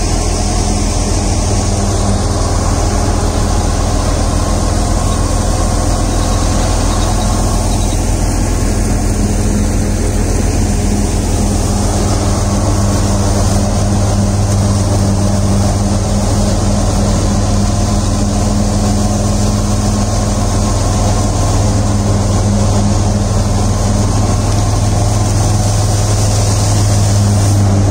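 National wheat thresher running steadily while wheat sheaves are fed into it: a loud, even mechanical drone with a strong low hum that grows a little stronger in the second half.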